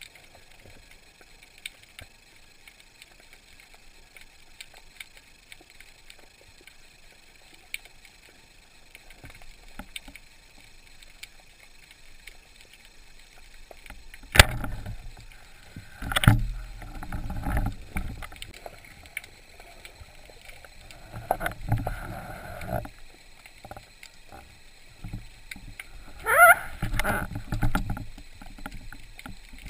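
Underwater sound through a camera housing on a spearfishing dive. At first only faint crackling and ticks, then a sharp knock about halfway. After that come irregular low thumps and rushes of water noise, with a short rising squeal near the end.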